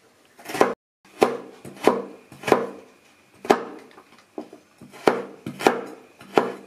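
Kitchen knife slicing carrots on a wooden chopping board, a sharp knock at each cut. About nine cuts come at a steady pace of roughly one every two-thirds of a second, with one short pause midway.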